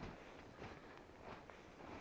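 Faint footsteps walking at an even pace, about one step every two-thirds of a second.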